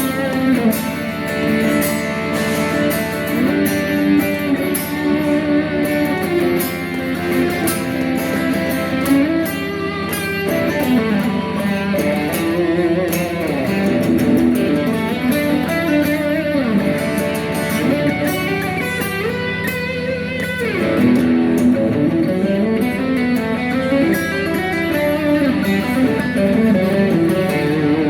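Rock music with electric guitar, including sliding guitar lines, over a steady drum beat.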